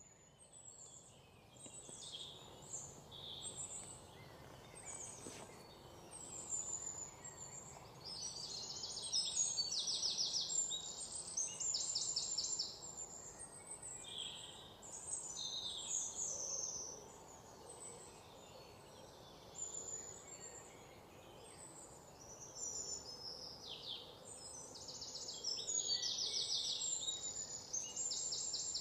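Small birds chirping and twittering almost without pause, high and busy, with bursts of fast rattling trills now and then.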